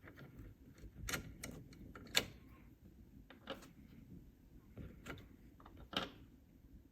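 Irregular clicks and light taps of hard keyboard parts being handled and set down, about half a dozen, the sharpest about two seconds in and another near the end.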